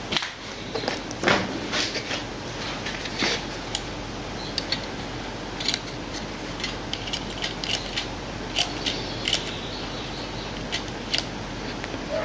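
Model railway train running on its track: light, irregular clicks and ticks over a steady hiss.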